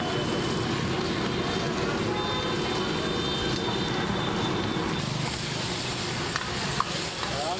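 Gas burner flame running steadily under a steel wok of sliced onion, capsicum and carrot. About five seconds in, a hissing sizzle rises as the vegetables are tossed with a metal ladle, with a few clinks of ladle on wok near the end.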